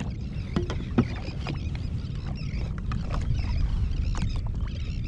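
Steady low rumble of open-air ambience on the water, with scattered light clicks and taps and a sharper knock about a second in.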